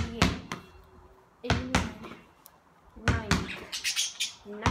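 Basketball thrown against a wall and caught in quick rounds, each a cluster of sharp slaps as the ball hits the wall, the ground and the hands, about every one and a half seconds. A boy's voice calls out briefly with each round, counting the throws.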